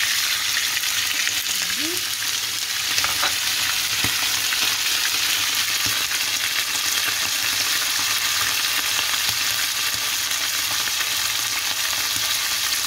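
Chopped liver frying in hot oil in a non-stick pan: a steady, loud sizzle. Now and then a fork clicks against the pan as the pieces are moved around.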